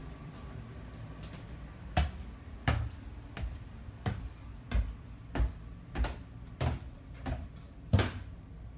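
Footsteps climbing a staircase with wooden treads: about ten even footfalls, roughly one every two-thirds of a second, starting about two seconds in.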